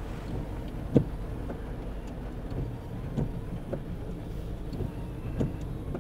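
Car interior noise while driving on a wet street: a steady low rumble of engine and tyres, with a few short soft knocks, the clearest about a second in.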